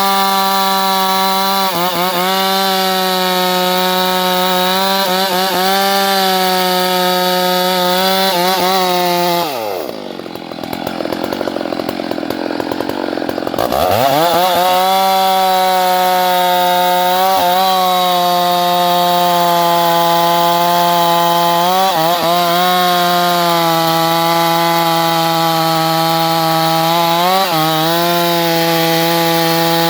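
Chainsaw running at full throttle, cutting into a tree, its engine note dipping briefly under load every couple of seconds. About ten seconds in, the throttle is let off and the saw falls to a low idle for a few seconds, then revs back up and cutting resumes.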